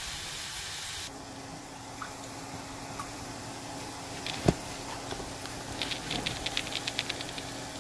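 Pot of instant yukgaejang heating on a gas burner on low heat around a frozen block of soup, with a steady hiss and scattered pops and crackles as the liquid starts to bubble. A quick run of small ticks comes near the end, and a faint steady hum sets in about a second in.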